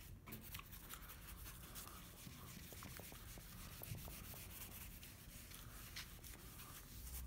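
Faint scratchy rubbing of a whiteboard eraser wiped across a small whiteboard, clearing marker writing, with small ticks as it moves.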